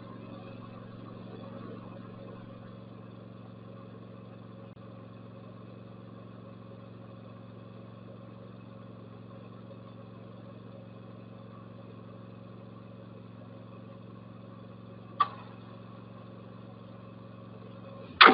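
Zero-turn riding mower engine idling with a steady hum, a sharp click about 15 seconds in, then a loud bang near the end that dies away over a couple of seconds.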